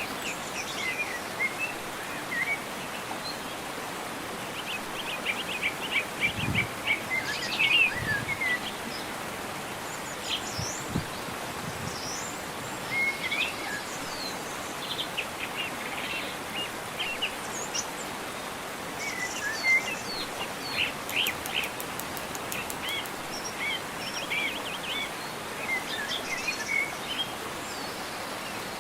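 Birds chirping and trilling on and off, in short calls and quick runs of notes, over a steady background hiss.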